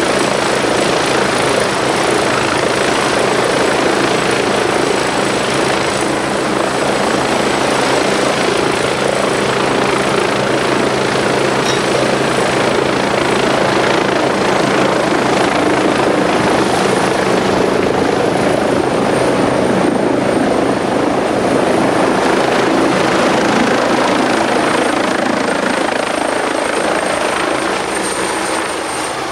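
Westland Wasp helicopter running steadily on deck, its turbine and rotors making a loud, unbroken noise with a thin high whine over it.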